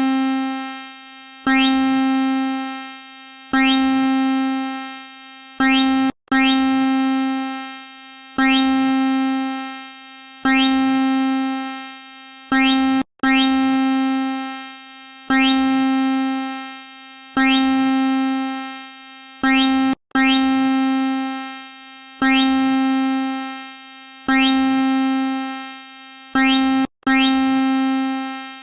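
Synthesized emergency alert alarm tone: one low note that starts sharply about every two seconds, with a quick rising swish at the top of each onset, and fades away before the next. The sequence breaks off for an instant about every seven seconds and starts again.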